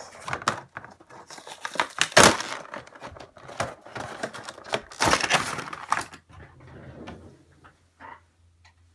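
Toy-figure packaging, a stiff clear plastic tray and a cardboard box, being pulled and torn open by hand: crinkling and crackling plastic, loudest about two seconds in and again around five seconds, then dying down to a few faint clicks.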